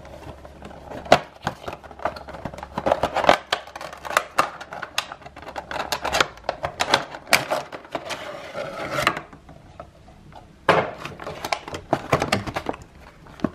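Cardboard Funko Pop box and its clear plastic insert being handled and opened: a busy run of rustling, crinkling and small clicks, with a short lull about two-thirds of the way through.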